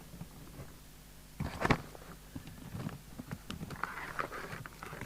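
Irregular clicks, knocks and rattles of things being handled on a workbench, starting about a second and a half in with the loudest knock just after, over a low steady mains hum.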